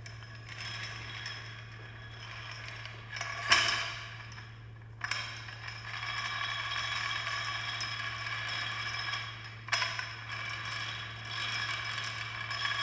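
A ratcheting tool running in several spurts: a short loud one, then a long run of about five seconds, then two shorter ones. A steady low hum lies underneath.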